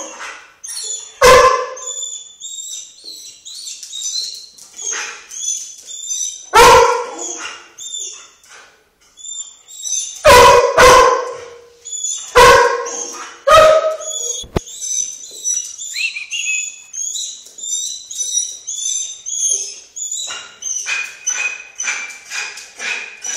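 A dog barking about six times, in loud single barks, with high-pitched whining between and after the barks. These are signs of separation anxiety.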